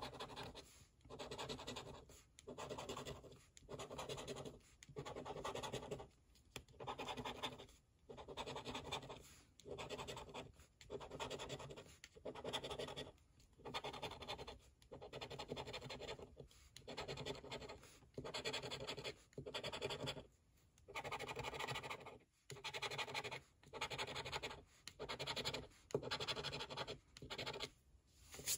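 Coin scratching the coating off a scratch-off lottery ticket on a wooden desk, in a steady run of short strokes a little faster than one a second with brief pauses between them.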